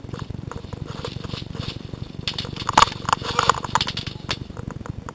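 Rattling and rubbing of a body-worn camera as the player moves, with a burst of sharp clicks and cracks through the middle, loudest a little before halfway.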